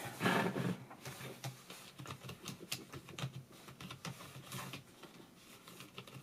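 Keys of a cheap Xenta MT-K201 full-size USB keyboard being typed on: a run of irregular, fairly soft key clicks. The keys feel squidgy, with the plastic moving under the fingers. The first second holds a louder handling clatter.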